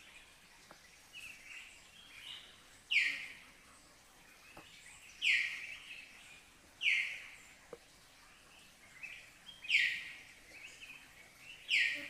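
A bird calling in forest: five loud, short calls that each sweep down in pitch, spaced about two seconds apart, with softer chirps between them over a faint steady hiss.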